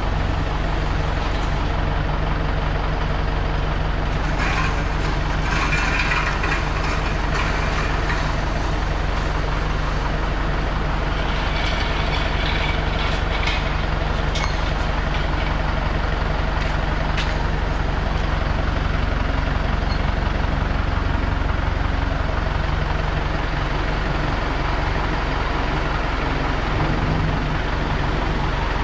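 Tractor engine running steadily with a low, even hum, with scattered metallic clatter a few seconds in and again about twelve seconds in.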